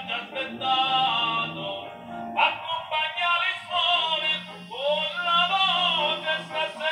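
Music: a singer performing an operatic Neapolitan song, the sung notes wavering with vibrato over accompaniment.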